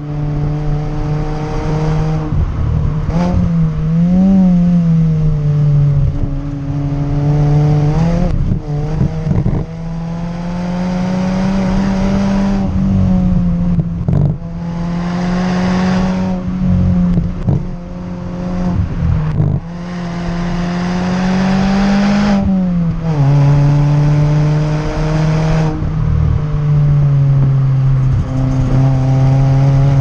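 Fiat Panda 100HP's 1.4-litre four-cylinder petrol engine heard through its Ragazzon aftermarket exhaust while the car is driven hard. The note climbs steadily in pitch under throttle and falls quickly several times between pulls, with rushes of noise as the revs drop.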